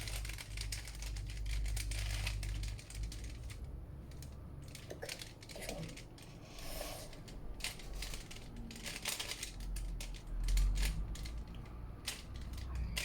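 Rubik's cube being twisted over and over: a long run of irregular plastic clicks and clacks as its layers turn, over a low steady rumble.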